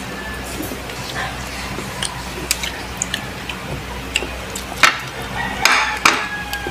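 Mukbang eating sounds: wet chewing and lip smacks as saucy braised pork and rice are eaten by hand, with sticky finger and food clicks. The smacks come scattered and irregular, loudest about five seconds in and again around six seconds, over a low steady hum.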